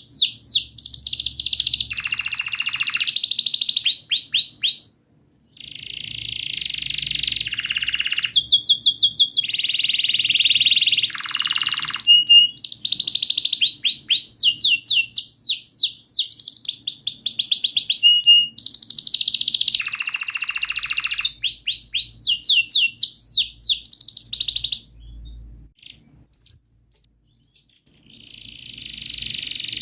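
Domestic canary singing a long, loud song of rapid repeated chirps and rolling trills, with brief pauses between phrases. The song stops about 25 seconds in, and a short new phrase begins near the end.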